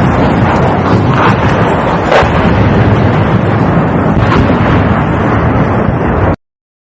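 Continuous loud rumbling roar of artillery fire and explosions, with sharper cracks about a second in, about two seconds in and about four seconds in. The sound cuts off suddenly near the end.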